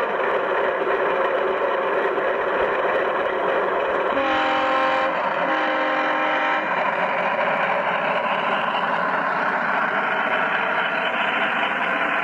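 Sound unit of a G-scale BR 218 model diesel locomotive running: a steady diesel engine drone, which the owner explains as an Alco engine. Two short chord-like horn blasts sound about four and five and a half seconds in.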